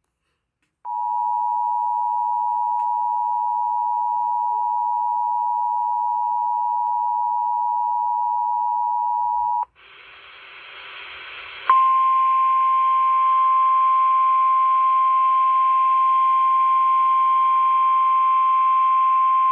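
Emergency Alert System attention signal on broadcast radio: a steady two-pitch tone held for about nine seconds. After a brief stretch of rising hiss, the single steady warning alarm tone of a relayed NOAA Weather Radio alert follows, signalling that a severe weather warning message is about to be read.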